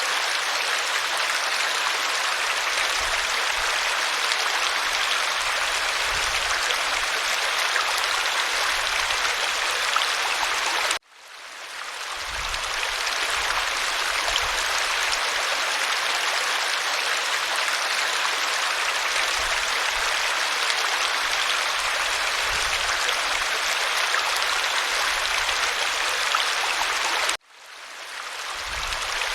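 Waterfall: a steady, dense rush of falling water. It cuts out suddenly twice, about eleven seconds in and again near the end, fading back up over a second or two each time.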